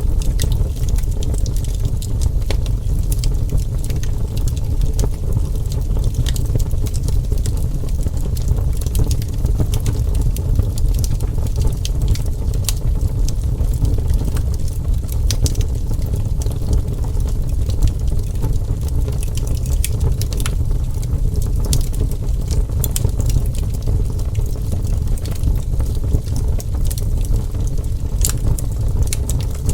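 Wood fire burning: a steady low rumble from the flames with frequent small, sharp crackles and pops scattered irregularly throughout.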